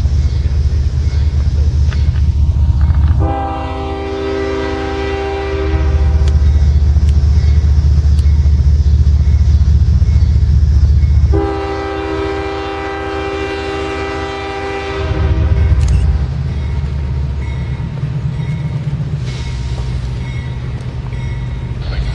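CSX diesel freight locomotive sounding its horn in two long blasts, the first about three seconds in and the second about eleven seconds in, as a warning at a grade crossing. Under and between the blasts runs the heavy low rumble of the locomotive and its container train rolling past.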